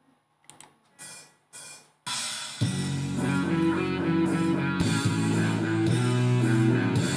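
Instrumental intro of a song: a few quiet notes, then guitar comes in about two seconds in, with bass and drums joining half a second later.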